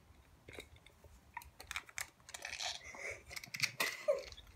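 Faint, scattered light clicks and rattles of a plastic Beyblade spinning top being handled in the hands.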